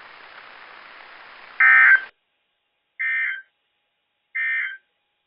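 Three short bursts of EAS SAME digital data tones from a NOAA Weather Radio broadcast, each a buzzy warble about half a second long, spaced about a second and a half apart, the first loudest: the end-of-message code that closes the alert. Faint radio hiss lies under the start and cuts off after the first burst.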